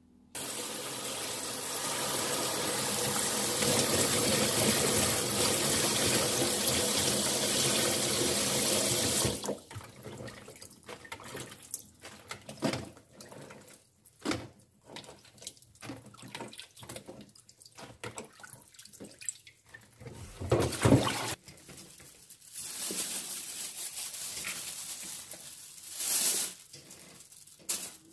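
Kitchen tap running into a sink for about nine seconds, then water splashing and dripping in irregular bursts as shishito peppers are swished by hand in a bowl of water and lifted into a mesh strainer. The tap runs again for a few seconds later on.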